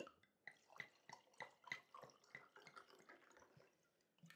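White wine poured from a bottle into a wine glass: faint, uneven glugs and trickling of liquid filling the glass.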